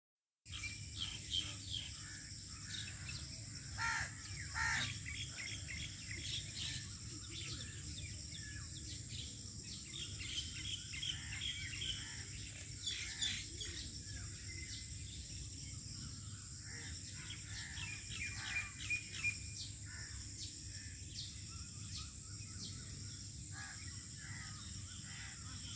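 Birds chirping and calling on and off in short, scattered calls, over a steady high-pitched whine and a low background rumble.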